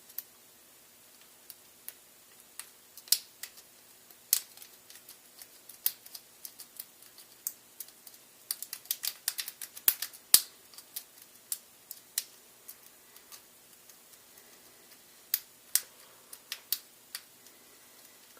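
Lock pick and tension wrench working in the small keyway of a cable gun lock: irregular light clicks and ticks, thickest about halfway through, as the pins are picked one at a time.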